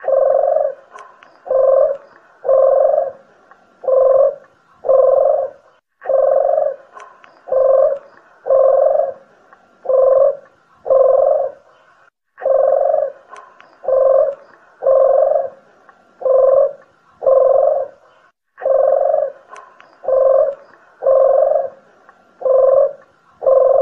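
Collared doves (puter geni and deruk jawa) cooing in a looped bird-lure recording. The calls come in phrases of about five low coos, and each phrase repeats about every six seconds after a short break.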